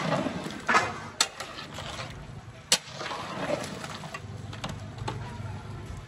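A few sharp knocks or clanks, the loudest a little under three seconds in, over a steady low background hum.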